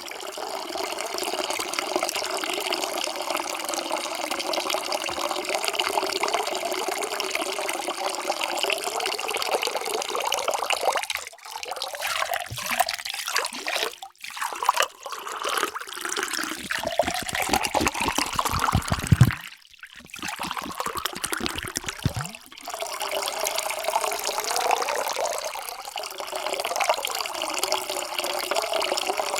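Water pouring into a container in a steady stream. It stops and starts again several times in the middle, and during the second quarter the flow turns lumpier and splashier.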